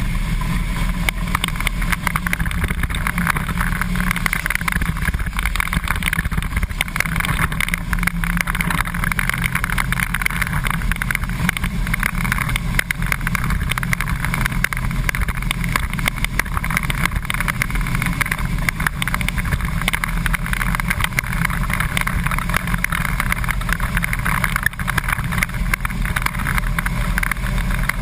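Flat-nose school bus engine running steadily under way around a dirt race track, heard from inside the cab: a loud, unbroken engine and road noise with no let-up.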